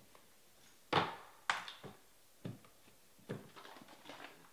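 A few sharp knocks and clatters from objects being handled and set down on a table. The two loudest come about a second in, then a run of lighter clicks and rustles near the end.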